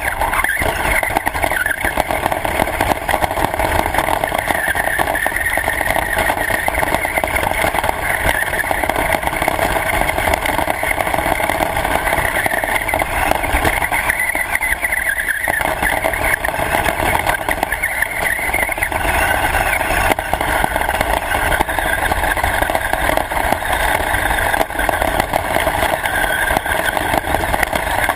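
Radio-controlled car running: a steady motor and drivetrain whine over a low rumble, with the pitch shifting a little as it drives.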